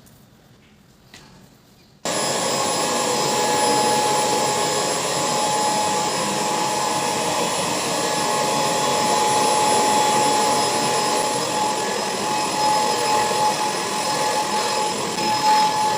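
Vacuum cleaner switched on about two seconds in, then running steadily with a constant high whine over its motor and suction noise.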